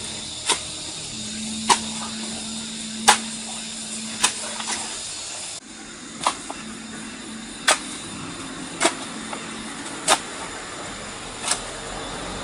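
A metal-bladed shovel chopping into clumpy soil, a sharp strike a little more than once a second, about nine in all, over a steady hiss.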